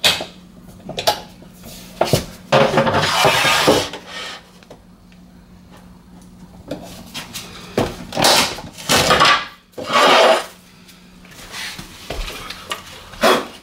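A laminate floor board being cut on a hand-lever laminate cutter, several scraping, crunching strokes of about a second each, mixed with knocks and clatter as the board is handled.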